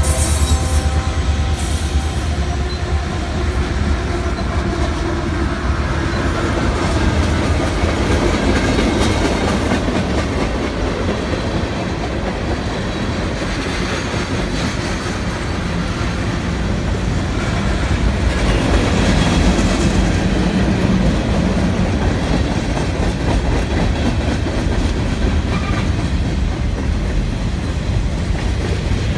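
Freight train of tank cars rolling past: a steady rumble of steel wheels on rail with clickety-clack over the joints. A diesel locomotive's engine drone fades out within the first couple of seconds.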